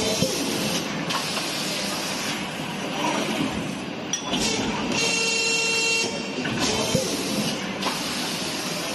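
Injection moulding machine cycling a thin-wall food container mould: long stretches of hissing and a few clicks and knocks as the mould opens and closes. About five seconds in, a steady whine with many overtones sounds for about a second, part of a cycle that repeats about every six and a half seconds.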